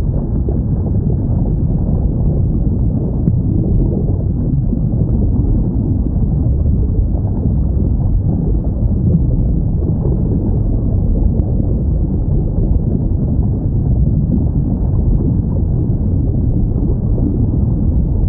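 Steady, muffled low rumble of underwater ocean ambience with no whale call standing out, and two faint ticks.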